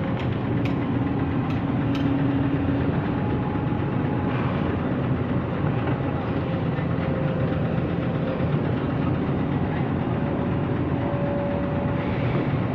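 Excavator's diesel engine and hydraulics running steadily while it digs soil, with a few short sharp knocks in the first two seconds.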